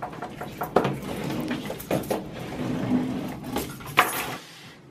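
A bunch of keys jingling and scraping as they slit the packing tape on a cardboard box, with a few sharp clicks and knocks against the box.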